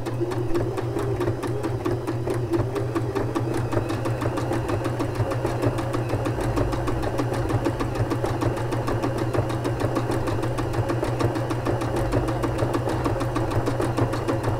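Domestic sewing machine running steadily, its needle mechanism clattering in a fast, even rhythm over a steady motor hum as it sews a stretch blind-hem stitch through stretchy lycra fabric.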